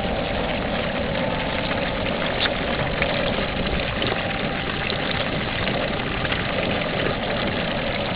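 Hot oil bubbling and crackling around a whole 14-pound turkey deep-frying in an open aluminium fryer pot, over the steady rush of the propane burner underneath. The sound holds even, with fine pops scattered through it.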